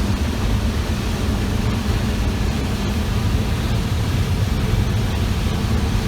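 Combine harvester running while harvesting corn, heard from inside the cab: a steady drone with a low hum.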